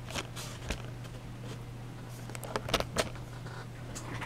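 Scattered small clicks and rustles of things being handled close to the microphone, clustered about two and a half to three seconds in, over a steady low electrical hum.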